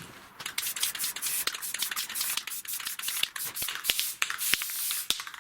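Quick scratchy strokes of writing on the rough face of oriented strand board, marking it as the inside.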